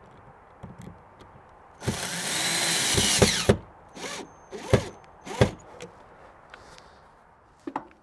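Cordless drill/driver driving a screw into the RV door lock: one run of about a second and a half, then three short trigger pulses that snug the screw down.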